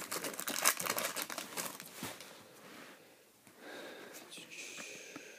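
Foil wrapper of a 2002 Donruss baseball card pack crinkling and crackling as it is torn open, busiest in the first two seconds. It then goes quieter as the cards are slid out and handled.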